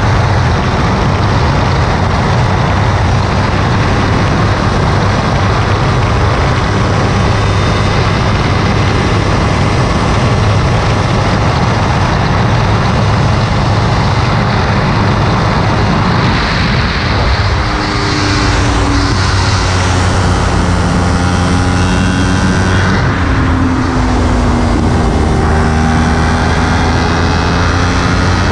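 Kawasaki Ninja 300's parallel-twin engine running hard in sixth gear, heavily buffeted by wind rush on the onboard camera. After the middle of the stretch the engine note drops in several steps, downshifts as the bike slows for a corner.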